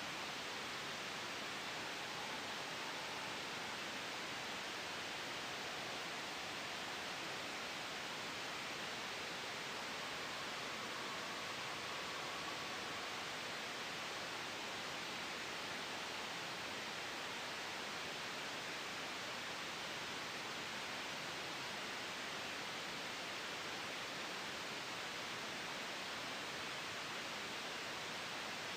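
Steady white-noise hiss, even and unchanging, with no sudden sounds.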